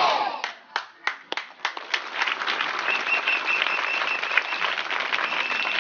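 A crowd of schoolchildren clapping: after the tail of a shout at the very start, a few separate claps build within about two seconds into steady, dense applause. A thin high tone sounds twice over the clapping in the second half.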